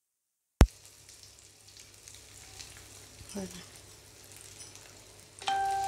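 Breaded chicken pieces deep-frying in hot oil in a wok: a faint, steady sizzle with small crackles, which cuts in with a sharp click about half a second in. Near the end a louder steady tone starts and holds.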